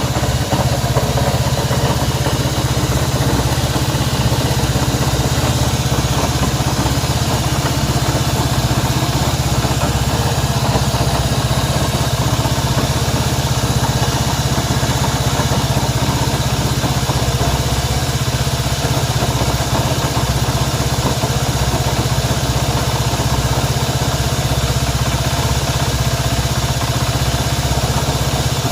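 Honda CB190R's single-cylinder engine idling steadily. The bike has a strange engine noise whose cause is being sought.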